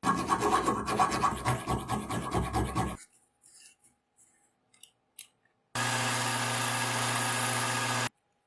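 Rough, rapid scraping or rasping strokes for about three seconds, as in filing or brushing a part clean, stopping abruptly. Near the end comes a steady, even power-tool noise with a low hum, lasting about two seconds and cutting off suddenly.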